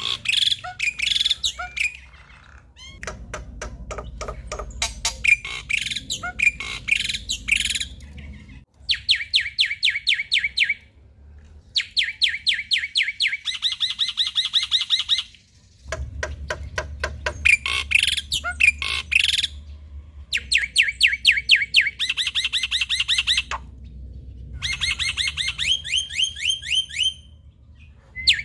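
Male black-winged myna (jalak putih) in full song: harsh chattering phrases alternate with fast runs of repeated clear notes, about five a second, with short pauses between phrases.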